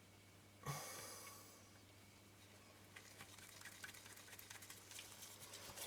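Near silence over a faint low hum, with a soft breath about a second in, then faint scattered small ticks of a small screwdriver driving tiny screws into a camera body.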